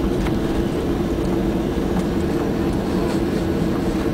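Cabin noise inside a Boeing 737-800 while it taxis: its CFM56-7B turbofan engines at low power give a steady hum with a droning tone over a low rumble, with a few faint ticks from the cabin.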